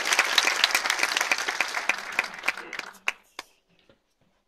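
Audience applauding, the clapping thinning out and stopping about three seconds in, with a few last separate claps.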